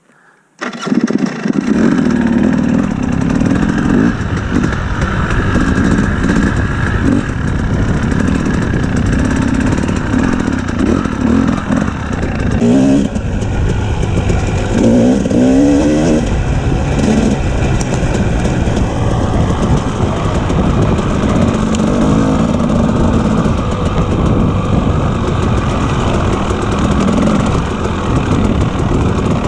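Two-stroke KTM 250 EXC enduro bike engine running under way, revving up and down as it is ridden. It comes in suddenly about half a second in.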